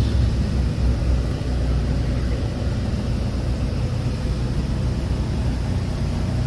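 Steady low rumble of a car heard from inside the cabin: engine and road drone with no distinct events.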